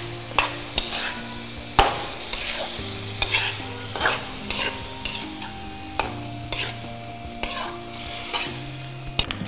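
A flat metal spatula stirring and scraping mixed vegetables and curd around a kadai, in irregular scrapes and clicks against the pan.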